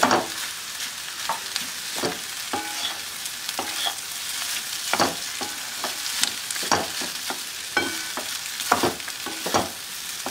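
Metal spoon scraping and clinking irregularly against a metal pan while cooked rice is stirred into fried onions and mushrooms, with a steady sizzle underneath.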